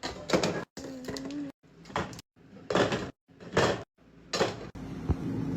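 Knocks, clunks and rustling of groceries and containers being handled, such as doors opening and items set down, in short bursts broken by abrupt silent cuts.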